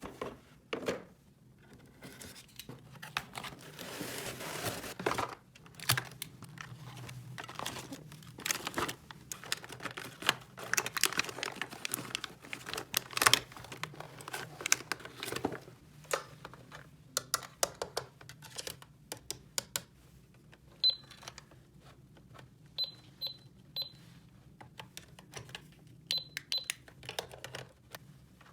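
Small plastic toy pieces clicking and knocking as they are handled, with plastic packaging crinkling in the first part. Several short high electronic beeps sound in the second half, in two small clusters.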